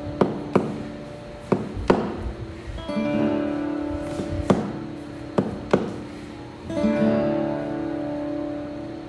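Live acoustic guitar playing strummed chords that ring on, with a new chord struck about three seconds in and another near seven seconds. Several sharp knocks sound between them in the first six seconds.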